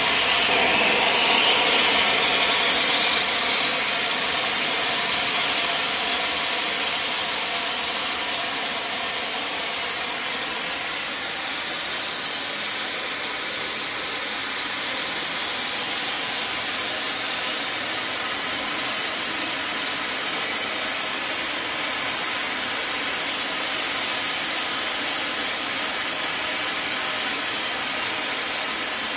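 A 30-second ground fountain firework burning with a steady hiss of spraying sparks. It is a little louder over the first several seconds, then settles.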